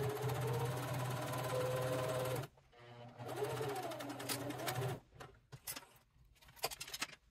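Electric sewing machine stitching through cork fabric in two runs with a short stop about two and a half seconds in, its motor hum and whine rising and falling with speed. After that, a scatter of sharp clicks and snips as small scissors trim the threads.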